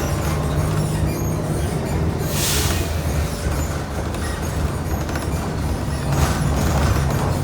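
Bus engine running with a steady low hum. A brief hiss comes about two and a half seconds in, and a fainter one near the end.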